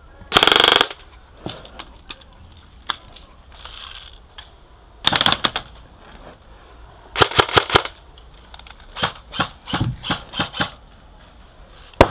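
Airsoft guns firing: a short rapid burst about half a second in, another burst about five seconds in, a longer rapid burst past seven seconds, then a string of separate quick shots, with a single sharp shot right at the end.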